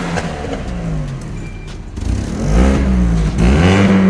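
The supercharged 1.6-litre four-cylinder engine of a 2006 Mini Cooper S being revved in several blips, its pitch falling, then rising and falling again. It is loudest in the second half.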